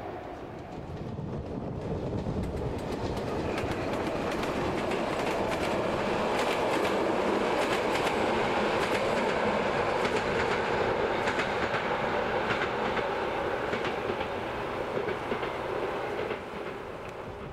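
Locomotive-hauled passenger train passing by, its wheels clicking over the rail joints. The sound swells to a peak in the middle and fades as the train runs away into the distance.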